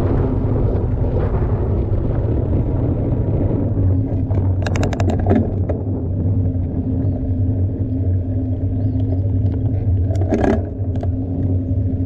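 Mountain bike ride heard from a rider-mounted camera: steady rumble of tyres rolling over the trail and wind on the microphone, with a quick run of rattling clicks about halfway through and another short rattle near the end.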